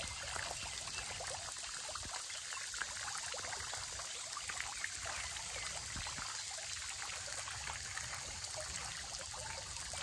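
Ornamental garden fountain: water sprays from a spout atop the centrepiece and falls into the pool below, a steady splashing of many droplets.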